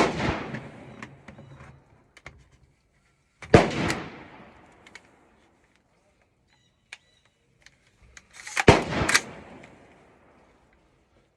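Firearm shots at an outdoor range: one right at the start, another about three and a half seconds later, then two in quick succession near the end, each with a ringing, echoing tail. Fainter short pops fall between them.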